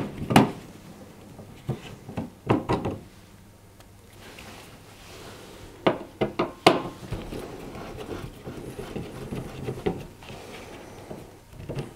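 Hand screwdriver undoing the screws of a tumble dryer's plastic heater cover: scattered sharp clicks and knocks of the tool on the screws and plastic, several close together about six seconds in, with faint scraping between them.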